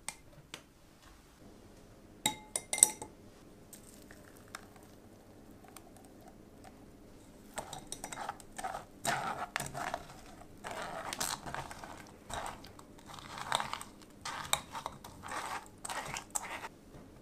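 A few ringing glass-and-metal clinks about two seconds in. From about the middle on, a silicone spatula scrapes strawberry purée through a stainless mesh sieve in repeated wet strokes, about two a second.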